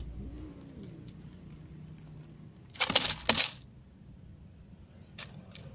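Cats eating dry kibble from a plastic tub, with small crunching clicks. About three seconds in, two loud short bursts of rushing noise come close together.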